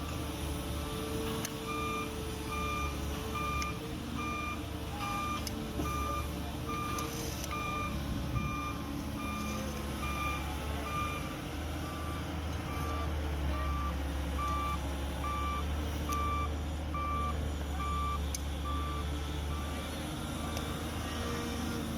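A heavy vehicle's reversing alarm beeping steadily, about three beeps every two seconds, over the low running drone of a diesel engine. The beeps start about two seconds in and stop a few seconds before the end.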